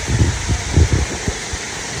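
Waterfall rushing with a steady, even roar. Irregular low thumps and rumbles break in over it during the first second and a half.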